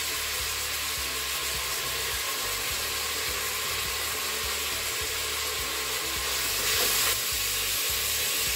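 Diced chicken breast sizzling in sesame oil in a Crockpot Express multicooker pot on its browning (sauté) setting, with garlic just added, while being stirred with a spatula. A steady sizzle that swells briefly about seven seconds in.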